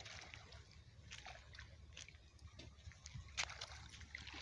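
Faint water sloshing and light, scattered clicks and crackles as a fine-mesh fishing net is hauled through a pond by someone wading in it, with one sharper click about three seconds in.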